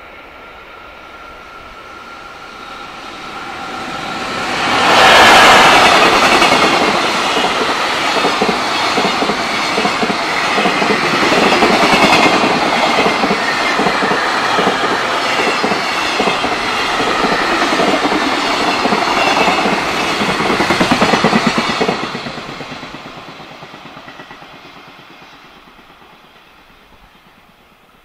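A long JR Freight container train passes at speed. The electric locomotive comes by about five seconds in, and then the container wagons' wheels clatter steadily on the rails for some seventeen seconds before the train moves off and the sound fades away.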